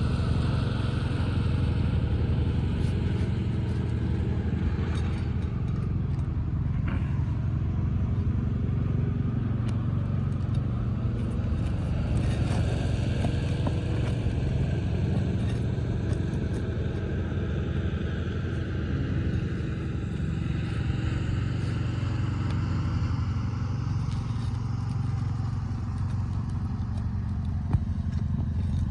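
A steady low rumble with faint scraping and occasional light clicks: roofing nails being pried out of asphalt shingles.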